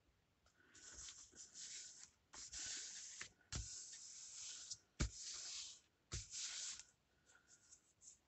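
Paper and card rustling and sliding against each other in several short strokes, with three light knocks about halfway through, as paper pieces are handled and fitted together.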